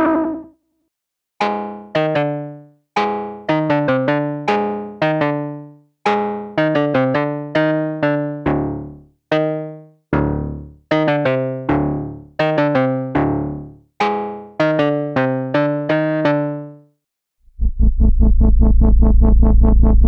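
Newfangled Audio Pendulate software synthesizer, a Buchla-style double-pendulum chaos oscillator, playing a keys patch: phrases of short notes and chords, each dying away quickly. Near the end a sustained, louder bass patch with a heavy low end comes in.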